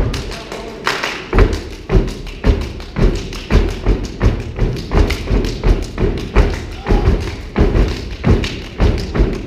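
Step team stomping and clapping in unison on a stage: a steady beat of sharp, heavy hits about twice a second.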